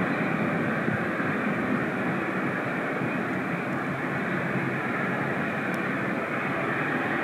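Boeing 737-800's CFM56-7B turbofan engines climbing away after takeoff, heard from the ground as a steady, even rushing jet noise.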